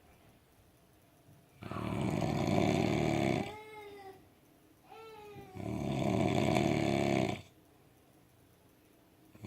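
A heavily drunk man asleep, snoring loudly: two long snores of about two seconds each, with two short falling whistle-like tones between them.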